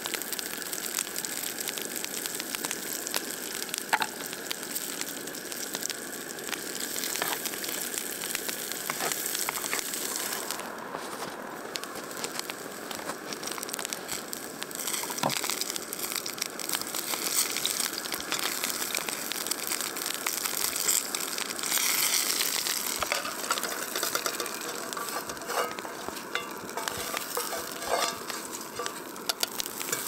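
Small pieces of food sizzling and frying in oil in a titanium frying pan on a gas canister stove, with the clicks and scrapes of a utensil stirring them now and then.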